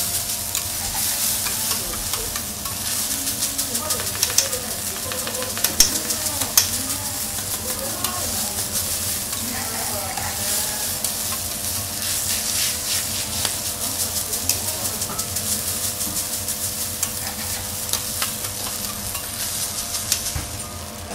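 Fried rice sizzling on a flat steel teppanyaki griddle while a metal spatula and fork chop and turn it, with frequent sharp clicks and scrapes of metal on the griddle.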